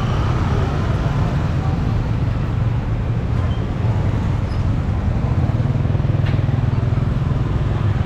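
Steady low roar, with a single faint click about six seconds in.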